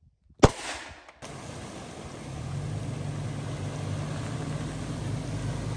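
A single handgun shot about half a second in, with a short ringing tail. Then a Toyota pickup truck's engine runs steadily and grows louder as the truck eases through a muddy water crossing.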